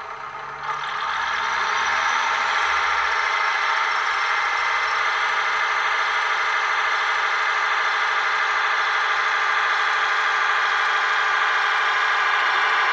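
DCC sound decoder in an N gauge Class 156 Sprinter model playing the unit's diesel engine sound through its small onboard speaker, so the sound is thin with little bass. About a second in the engine revs up, then holds a steady running note as the unit pulls away.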